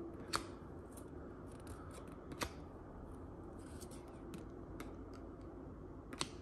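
Trading cards being handled and slid one by one through a stack, faint card rustle with a few sharp ticks as the card edges snap, about a third of a second in, about two and a half seconds in, and again near the end.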